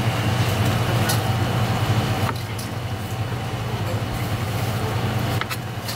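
Steady low mechanical hum under a broad hiss of background noise, the hiss dropping a little a couple of seconds in, with a few faint clicks.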